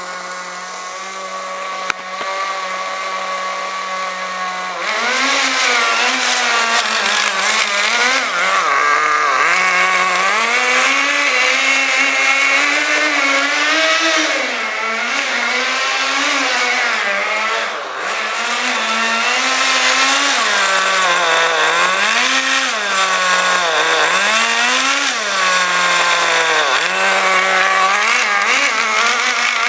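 Kyosho Nitro Blizzard's .11 two-stroke nitro engine running loudly: it holds a steady idle for about five seconds, then revs up and down over and over as the model is driven.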